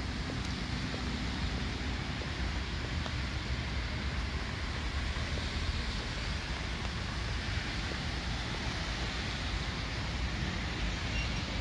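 Steady outdoor background noise: wind rumbling on the microphone over a constant hum of distant road traffic.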